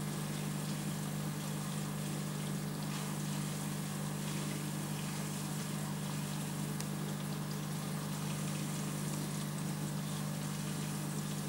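Aquarium pump running with a steady low hum, and water trickling.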